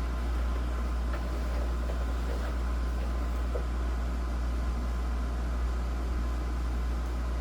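Steady low hum with an even hiss and a faint high tone, unchanging throughout.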